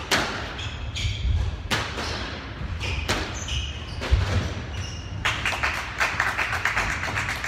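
A squash rally: the ball cracks off rackets and the court walls about five times, with shoe squeaks on the wooden floor. From about five seconds in, spectators clap steadily as the point ends.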